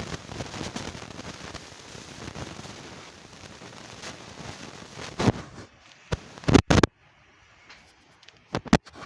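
Wind buffeting the microphone: a gusting rush for the first five seconds or so, then it eases. Several short, loud blasts come from gusts hitting the mic, two close together about six and a half seconds in and another pair near the end.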